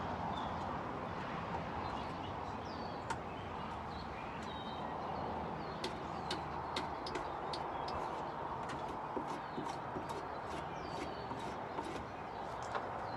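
Small birds chirping, short falling chirps scattered through, over a steady background hiss, with many sharp light clicks or taps, several close together in the second half.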